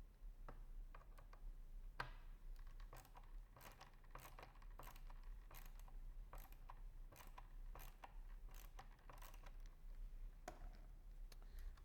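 Faint, irregular clicks and scrapes of a Torx screwdriver turning out long screws from a tripod leg's midsection end cap moulding.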